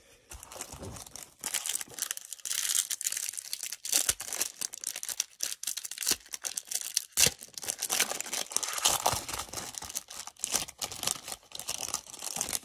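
Plastic cellophane wrapper of a Panini Prizm basketball cello pack crinkling and tearing as it is pulled open by hand, with a run of sharp crackles.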